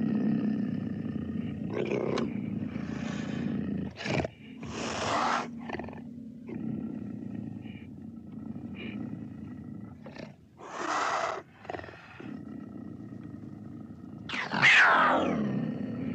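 Cougar growling and hissing: a run of short snarls, then one loud snarl near the end that slides down in pitch.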